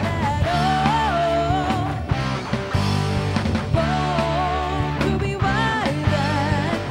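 Background rock music with a wavering lead melody over steady low notes.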